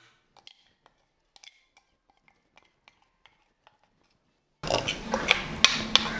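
Spoon scraping thick ground coconut paste out of a metal mixer-grinder jar into a pressure cooker. It starts as faint scattered clicks, then about four and a half seconds in turns into loud clinking and scraping of metal on metal.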